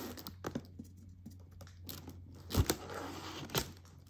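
A knife cutting the tape seals on a white cardboard box and the end flap being opened: quiet scraping and tearing with a few sharp clicks.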